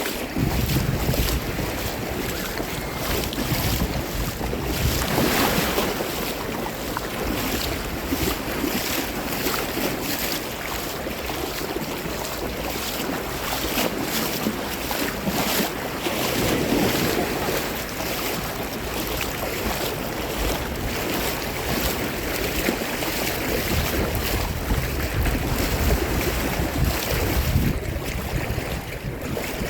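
Sea water washing and surging in slow swells, with wind buffeting the microphone.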